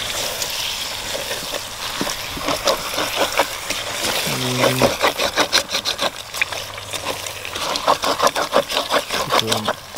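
Food sizzling as it fries in a pan, with a utensil stirring and scraping in quick repeated strokes through the second half. A short vocal sound comes about four seconds in.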